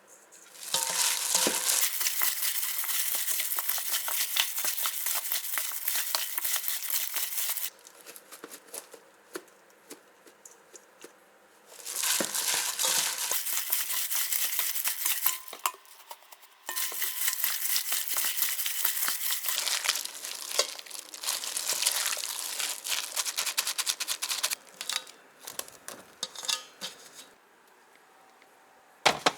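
Plastic packaging crinkling and rustling as it is handled, in three long stretches with brief pauses and scattered small clicks between them.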